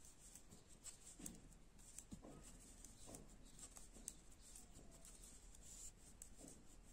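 Faint clicking of knitting needles and rubbing of wool yarn as stitches are worked by hand, over an otherwise near-silent room.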